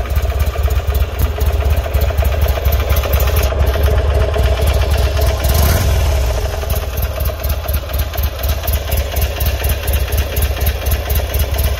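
2003 Buell Lightning XB9S's air-cooled 984 cc V-twin idling steadily.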